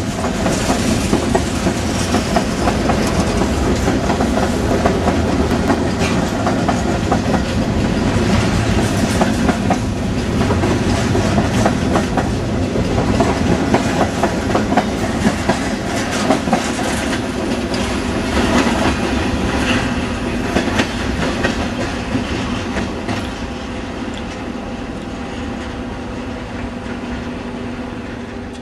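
Reading & Northern freight train's cars rolling past, with wheels clicking over the rail joints. The sound slowly fades over the last several seconds as the train moves away.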